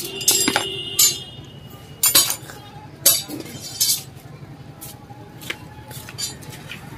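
Metal hand tools clinking against the Honda Shine's valve gear during tappet adjustment: a series of irregular sharp clinks, the first ringing briefly. A steady low hum runs underneath.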